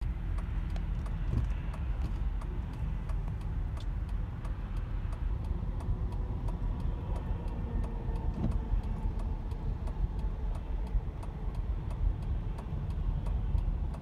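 Steady low road rumble of a car moving in highway traffic, with a faint fast regular ticking over it.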